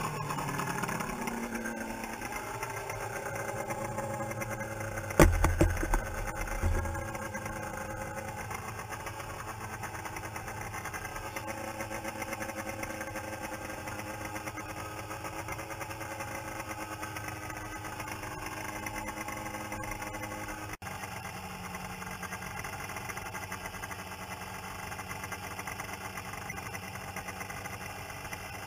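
Snowmobile engine slowing to a steady idle in the first couple of seconds, then idling. A few loud, dull thumps come about five to seven seconds in.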